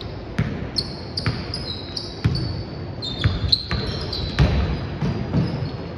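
A basketball bouncing on a court floor with irregular knocks, while sneakers squeak in short, high chirps during play.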